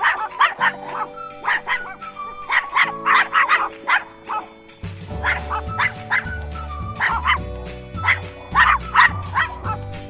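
A small dog yapping in short runs of quick barks, repeated several times, over background music.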